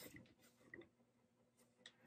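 Near silence with a few faint light clicks: one near the start, one about three quarters of a second in, and one near the end.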